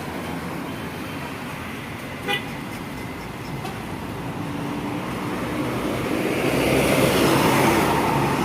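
Road traffic with a short horn toot a little over two seconds in, then a bus engine growing louder as the bus approaches and passes close.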